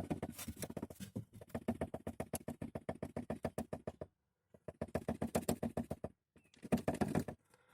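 Skoda Rapid's riveted rear charcoal canister (adsorber) knocking, a dull rapid rattle of about ten knocks a second in three runs with short breaks between. It is the source of the car's dull knock from the rear over bumps.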